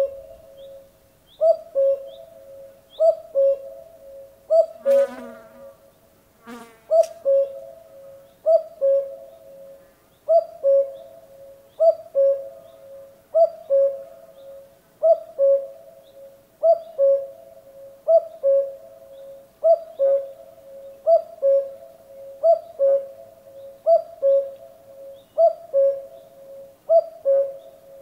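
Male common cuckoo giving its two-note "cuck-oo" call, a higher note falling to a lower one. The call repeats steadily about every second and a half.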